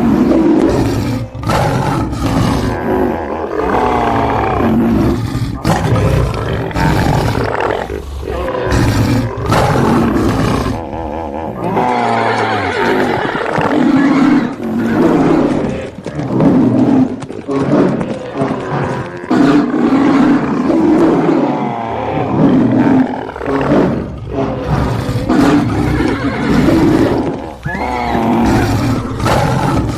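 Loud animal roars and growls, one after another, with music underneath.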